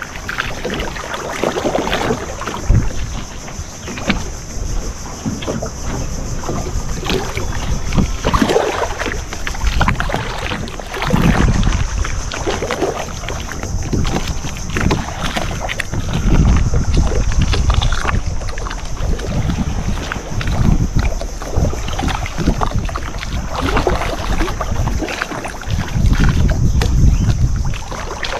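Wind gusting on the microphone aboard a fiberglass fishing boat, with low rumbling surges every few seconds and scattered knocks.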